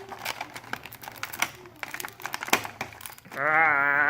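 Plastic and cardboard packaging crinkling and crackling in quick irregular bursts as a boxed action figure is unpacked. Over the last second a louder, long pitched tone with a slight waver begins.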